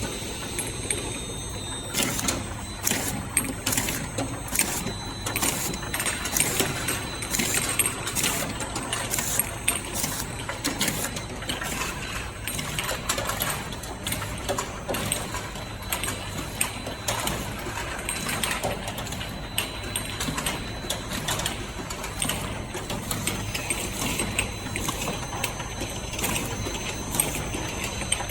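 Automatic round-bottle labeling machine running: a steady mechanical hum with faint high whine, and from about two seconds in, sharp clicks and knocks about once or twice a second as it works.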